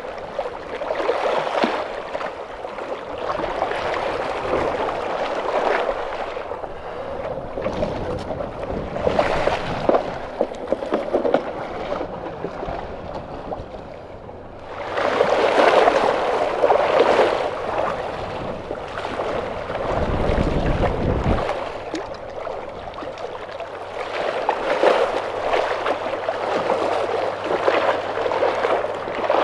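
Small sea waves washing and sloshing over rocks at the waterline, swelling and ebbing every few seconds. A brief low rumble of wind on the microphone comes about two-thirds through.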